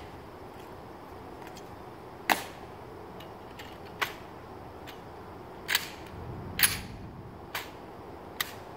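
A series of short, sharp clicks, about half a dozen at irregular intervals, over a steady low background.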